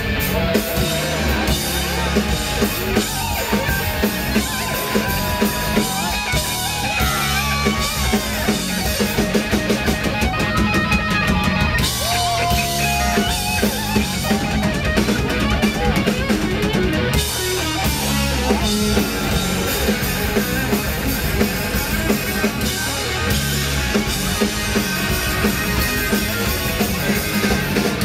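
Hard rock band playing live: drum kit and electric guitars, loud and dense, heard from within the audience.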